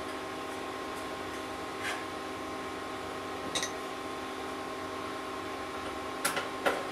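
A steady droning hum with several fixed tones, with a few light clicks and scrapes of small parts being handled while a thermal sensor is fitted to a dryer heating element assembly; the loudest two clicks come close together near the end.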